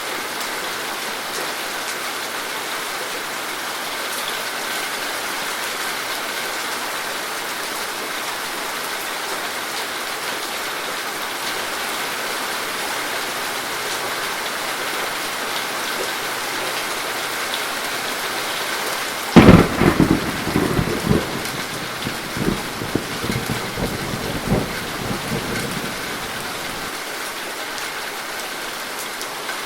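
Steady rain falling, with a sharp thunderclap about two-thirds of the way through that rolls and crackles for several seconds before fading back into the rain.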